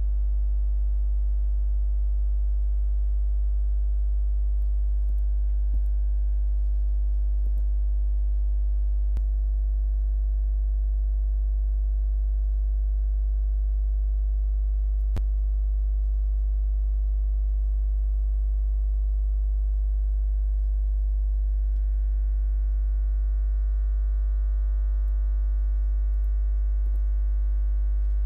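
Steady low electrical mains hum with a ladder of higher overtones above it, unchanging, with a few faint clicks.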